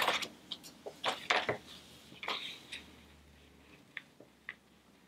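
Light rustles and small clicks of hands handling cut laminated pieces and plastic film at a rotary paper trimmer. They thin out to a few faint ticks near the end.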